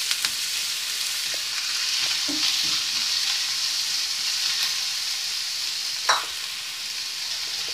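Chopped onions sizzling in hot oil in a nonstick frying pan, with a steady frying hiss, as a wooden spatula stirs and scrapes through them. There is one short sharp sound about six seconds in.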